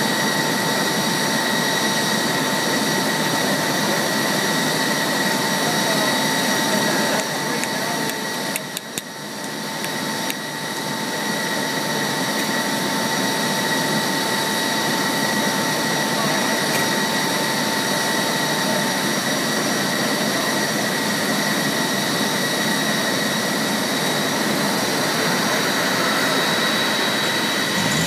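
Steady aircraft noise heard from inside an Airbus airliner's cabin: a rushing hiss with several high whining tones. One of the tones stops about two-thirds of the way through, and the noise dips briefly about a third of the way in.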